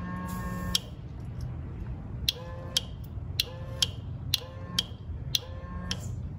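Electric brake-bleeder pump pressurising the brake system: a short whine, then a run of clicks, each with a brief rising whine, about twice a second, as fresh brake fluid is pushed through to clear air from the line.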